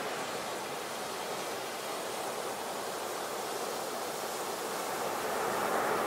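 Ocean surf: a steady wash of breaking waves, swelling slightly near the end.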